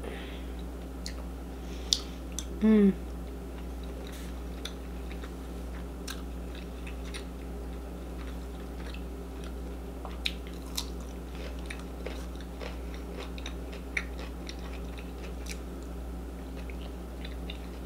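Close-miked chewing of a mouthful of rice and sausage, with small wet mouth clicks and smacks scattered throughout. A brief hummed vocal sound comes about two and a half seconds in, over a steady low hum.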